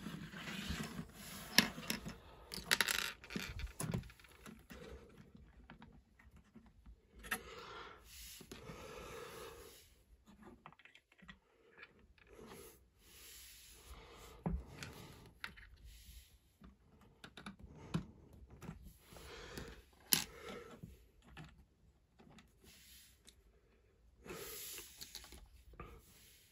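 Plastic Lego bricks and minifigures clicking, tapping and rattling as a built Lego Friends Cat Hotel set is handled, with scattered sharp clicks and short rustles.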